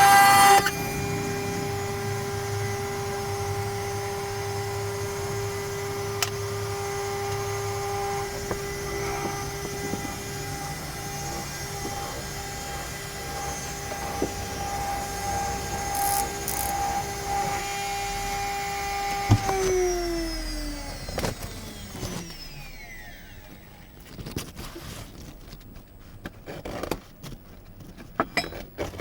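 CNC router spindle running with a steady high whine; a louder cutting sound stops about half a second in. About twenty seconds in the spindle is switched off and its whine falls in pitch as it spins down, followed by scattered clicks and knocks.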